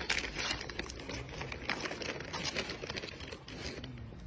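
Plastic snack wrapper crinkling, with irregular small clicks, as a macaque bites and tears at a packaged bread snack and eats it; the clicking thins out toward the end.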